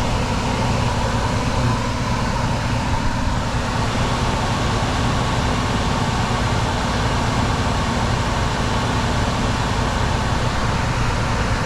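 Old Lennox HVAC system running: a steady rush of moving air over a low mechanical hum, with a thin, unbroken tone riding above it.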